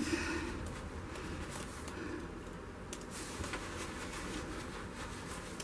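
Quiet, steady room tone with a few faint light clicks, from a canvas being handled and tilted by hand.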